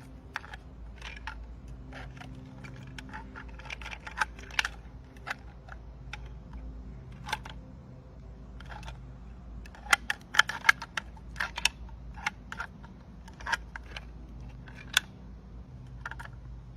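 Irregular sharp clicks and snaps, like paper being handled or folded, over a low steady hum; they come thickest about ten to twelve seconds in.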